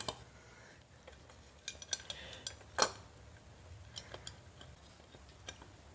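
Scattered light metallic clicks and clinks as an aluminium oil pump housing is handled and fitted onto the front of a 1985 Toyota Tercel engine block over the crankshaft; the sharpest knock comes about three seconds in.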